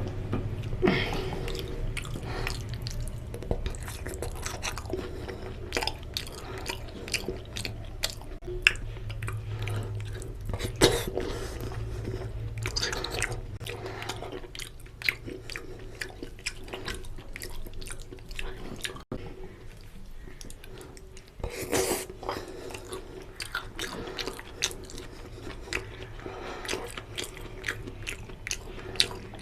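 A person chewing and biting food close to the microphone, with irregular wet mouth clicks and smacks: mutton lung and intestine curry eaten with puri. A low steady hum runs underneath.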